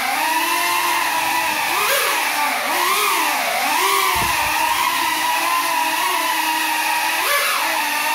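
Small FPV quadcopter's motors and propellers whining, the pitch rising and falling as the throttle changes, while it flies on broken propellers. About halfway through there is a brief low thud.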